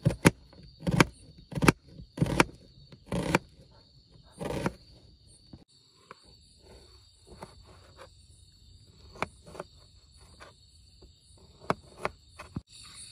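Kitchen knife chopping onion and tomato on a hard table top: sharp single chops about once a second for the first few seconds, then a few fainter cuts later on.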